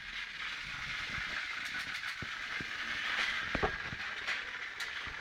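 Battery-powered toy trains running on a plastic track: a steady small-motor whir with scattered light clicks.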